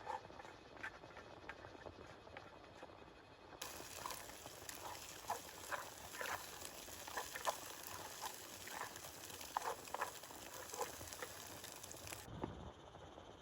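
Rain pattering, with separate drops tapping close by over a steady hiss. The hiss turns suddenly fuller and brighter about three and a half seconds in and thins again near the end.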